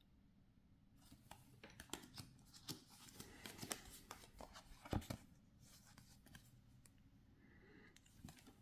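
Faint handling noise: light rustles and small clicks coming and going for several seconds, the sharpest one about five seconds in, then near silence.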